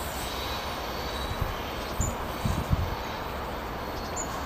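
A freight train's open wagons roll away into the distance with a steady rumble from the wheels on the rails. A few low knocks come about two to three seconds in.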